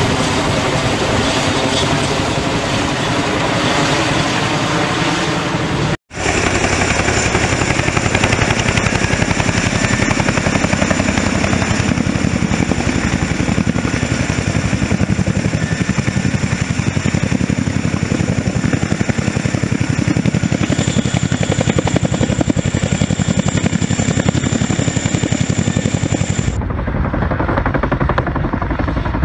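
Boeing Chinook tandem-rotor helicopters running in flight and in a low hover, a continuous heavy rotor and turbine sound. It breaks off for an instant about six seconds in. After that a steady high whine rides over it until a change in the sound a few seconds before the end.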